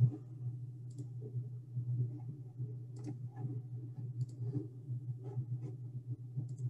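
Scattered computer mouse clicks over a steady low hum on an open call microphone, while a screen share of a PowerPoint presentation is being started.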